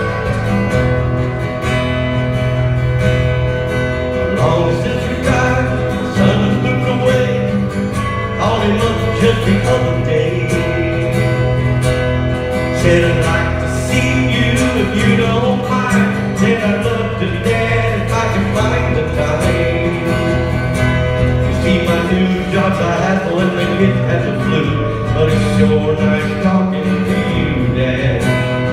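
Acoustic guitar strummed steadily in a continuous chord pattern, played live by a solo performer.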